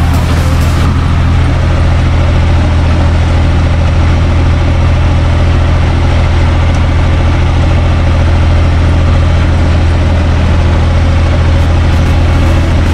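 UTB 445 tractor's diesel engine running steadily, heard from inside the cab.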